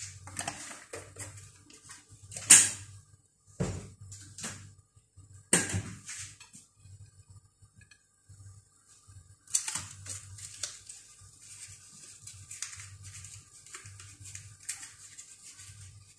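Kitchen handling clatter: a few sharp knocks, the loudest about two and a half seconds in, then lighter scattered clicks and taps, over a faint low hum.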